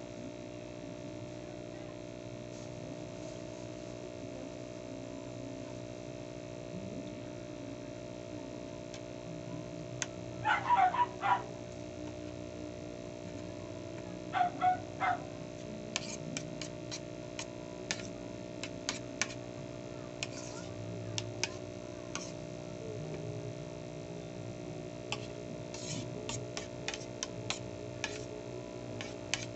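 A spoon clinks and scrapes on a ceramic plate in many quick, sharp taps from about halfway on, over a steady hum. Two bursts of short, high-pitched calls, the loudest sounds, come about ten and fourteen seconds in.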